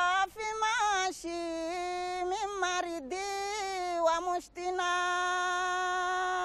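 A woman singing solo and unaccompanied, with long ornamented notes that bend and waver, a few short breaks for breath, and one long steady note held near the end.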